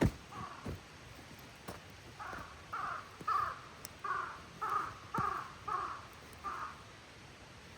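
A crow cawing: a run of about eight harsh calls, roughly two a second, starting about two seconds in. A sharp knock sounds right at the start.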